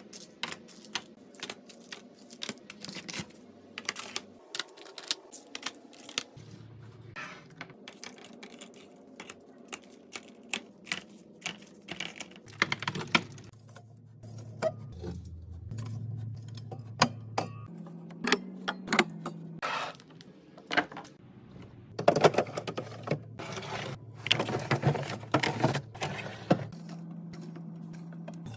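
Irregular clicking and clattering of small hard items, such as bottles, cans and plastic containers, being handled and set down while a fridge is restocked, with a denser burst of clatter about two-thirds of the way through.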